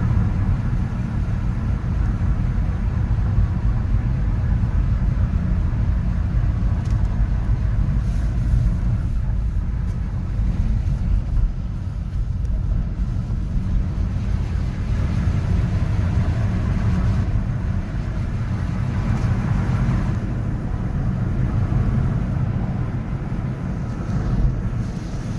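Steady city traffic noise: a continuous low rumble of cars with a fainter hiss above it, with no single vehicle standing out.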